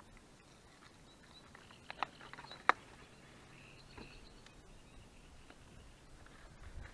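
Hands mixing freshly moistened feeder groundbait in a plastic bucket: soft, quiet handling, with a few sharp clicks about two to three seconds in.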